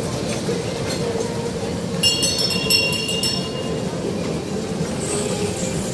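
A children's carousel running with a steady hum under general market noise; about two seconds in, a bell on the ride rings rapidly for about a second and a half.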